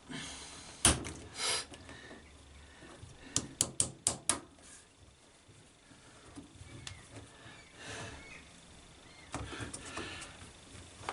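Sharp plastic clicks and knocks of a plastic clip being forced into place on a washing machine, with a quick run of about five clicks around four seconds in, then quieter handling and rubbing.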